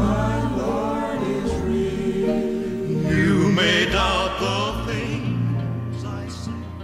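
Gospel music: a lead male voice and a backing choir singing long held notes with vibrato, dying away near the end.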